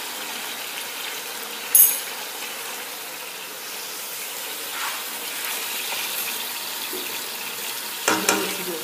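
Potatoes frying in hot oil in a pan, a steady sizzling hiss. There is a sharp click about two seconds in and a clatter near the end.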